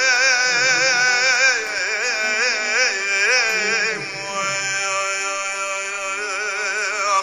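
Folk song: a singer holds long, ornamented notes with a strong wavering vibrato over a steady held accompaniment; the voice eases off about halfway through while the accompaniment carries on.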